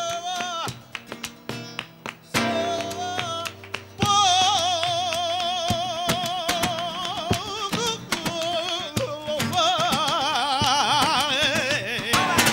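Male flamenco singer singing long, wavering melismatic phrases with wide vibrato, to two nylon-string flamenco guitars and hand-clapping (palmas). The first few seconds are guitar chords with short sung phrases; the long held lines begin about four seconds in, and the clapping thickens near the end.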